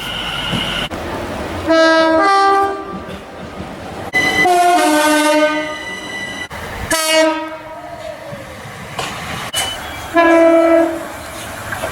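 Locomotive air horns sounding four separate blasts, each a chord of several notes at once. The longest runs from about four seconds to past six, and a shorter one starts about seven seconds in, its notes sliding down.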